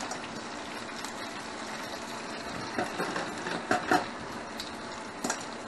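Hot frying oil sizzling steadily under freshly fried chicken pieces draining in a paper-lined wire strainer. A few sharp clinks and knocks of metal kitchenware come about three to four seconds in, and once more near the end.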